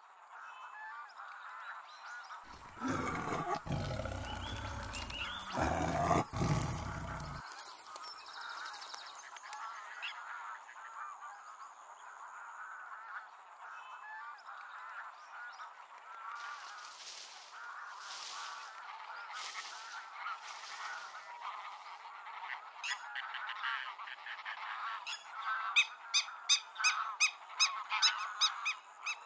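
Forest ambience: a steady background of distant animal and insect sound, with a deep rumble lasting about five seconds a few seconds in, and a quick series of about eight loud calls near the end.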